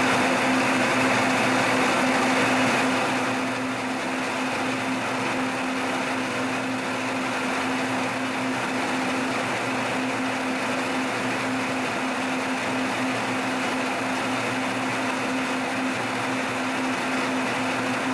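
Milling machine running a conical chamfer cutter along the edge of a metal bar: a steady motor and spindle hum with one constant tone under a cutting hiss. The sound is a little louder for the first three seconds, then holds even.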